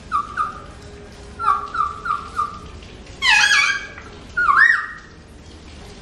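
Alexandrine parakeets calling: a few short chirps and a quick run of about five notes, then two louder, longer harsh calls in the second half, the last one arching up and down in pitch.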